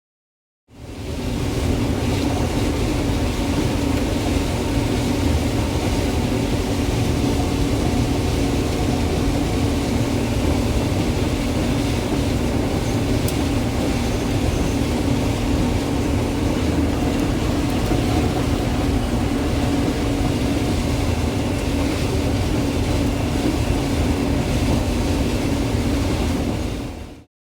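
Heavy machinery running steadily at a constant speed, with a strong even hum over a low rumble. It fades in about a second in and fades out just before the end.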